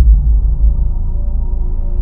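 Dark background music: a sudden deep hit at the start, then a sustained low drone with faint held tones above it.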